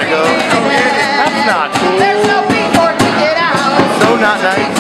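Live band playing loudly: strummed acoustic-electric guitar and accordion, with a man singing in a raw, shouting voice over them.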